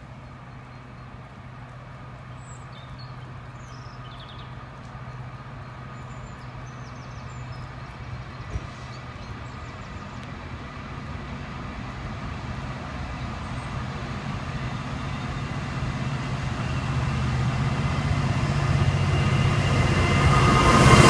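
Class 66 diesel-electric freight locomotive's two-stroke V12 engine approaching with a freight train, its low engine drone and a few steady tones growing steadily louder as it nears.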